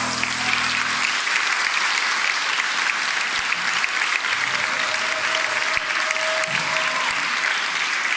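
Audience applauding a school choir. The last sung and piano chord of the song dies away about a second in, leaving steady, dense clapping from a large crowd.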